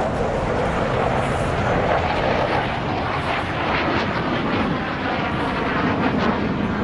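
Jet engine noise of a Chengdu J-10 fighter making a high-speed display pass, a steady loud rush that holds without a break.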